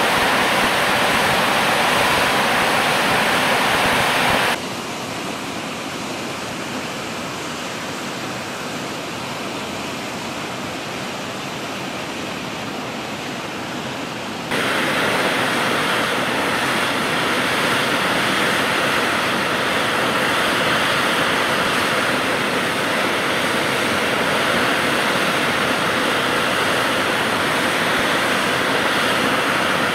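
Steady loud hissing roar of an Antonov An-26's turboprop engines running on the ground. About four and a half seconds in it cuts abruptly to a quieter, duller steady rumble. Some ten seconds later the loud roar cuts back in.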